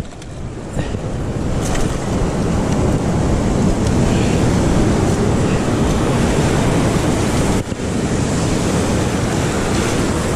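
Waves breaking on a rocky shore in a rough sea, mixed with wind buffeting the microphone. The rush swells over the first couple of seconds and drops out briefly about eight seconds in.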